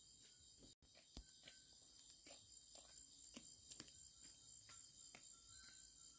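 Faint, steady chorus of insects, with scattered light clicks and taps throughout and a momentary dropout just under a second in.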